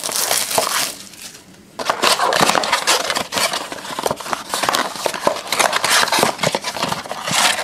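A cardboard trading-card blaster box being torn open by hand: the flap is ripped up and the cardboard scraped and rustled, with a brief quieter pause about a second in before the rustling and tearing resume.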